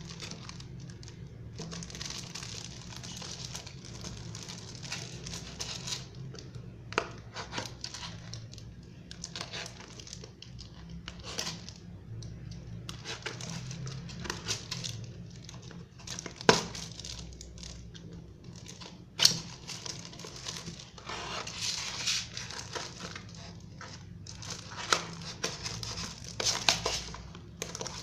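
Clear plastic wrapping crinkling and tearing as a small boxed parcel is handled and slit open with a utility knife, in uneven bursts of rustling. Scattered clicks and two sharp knocks past the middle are the loudest moments.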